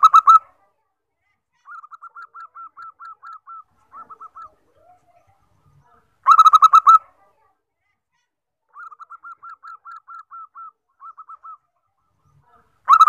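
Zebra dove singing: loud bursts of rapid staccato coos about every six and a half seconds, with softer runs of quick coos in between.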